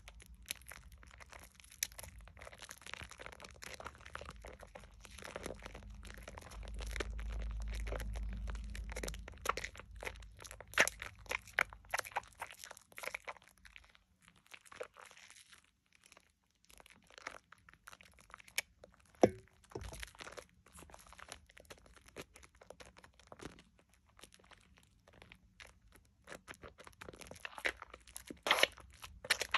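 Thick Dove shea butter soap lather being squeezed and kneaded by hand over a basin: close, wet squelching and irregular crackling of the foam, with a low rumble for a couple of seconds about seven seconds in and a sharper snap just after the middle.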